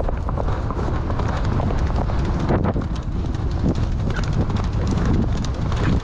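Hoofbeats of a horse running on a dirt road, a quick irregular string of strikes under a constant low rumble of wind on the microphone.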